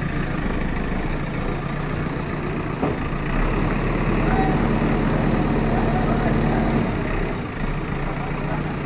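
JCB backhoe loader's diesel engine running steadily, heard close by. From about three and a half seconds in it runs heavier and a little louder for some three seconds, then settles back to its earlier note.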